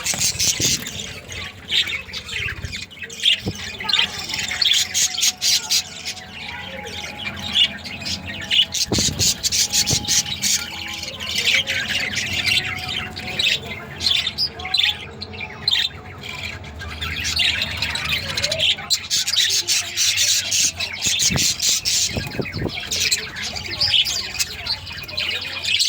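A colony of budgerigars chattering, with many birds chirping and squawking over one another without a break.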